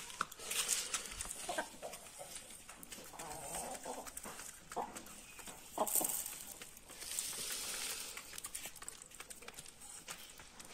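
Hens clucking briefly now and then while pecking grain off a concrete floor, the pecks heard as light taps.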